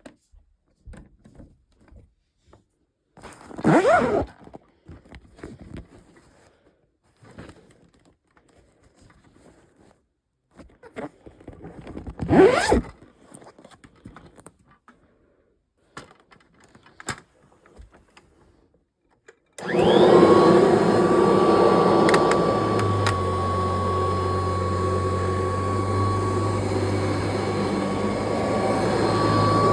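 Scattered handling knocks, with two louder short sounds that rise in pitch. About two-thirds of the way in, a Kirby Heritage II upright vacuum cleaner switches on and runs loudly and steadily, with a high steady whine over a low hum.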